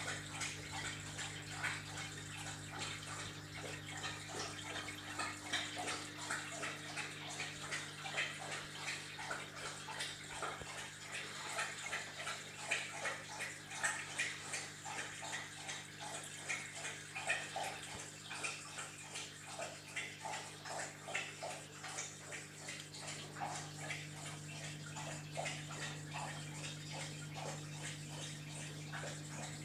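Aquarium water bubbling and splashing without a break, over a steady low hum from the tank's running equipment.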